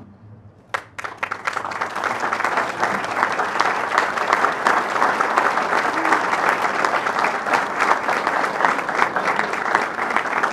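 Audience applause: a few scattered claps about a second in, quickly building into steady clapping.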